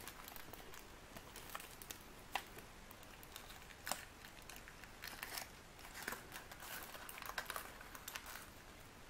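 Foil-wrapped chocolate egg being broken open by hand: the foil crinkles and the chocolate shell crackles and clicks, with two sharper snaps about two and a half and four seconds in.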